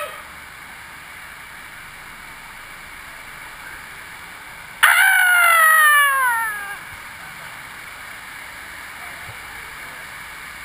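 A rider's loud, high-pitched whoop about five seconds in, starting suddenly and sliding down in pitch over about two seconds before fading. It sits over the steady rush of the ride's moving water.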